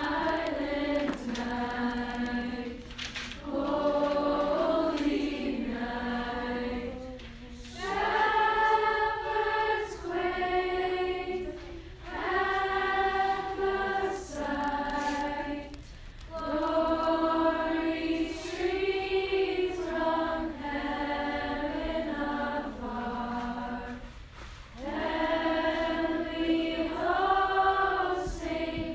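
A choir singing slow, held phrases, with short breaks between them every few seconds.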